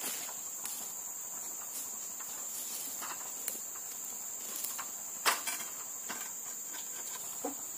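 Steady high-pitched insect drone, with a few sharp knocks and clicks, the loudest about five seconds in.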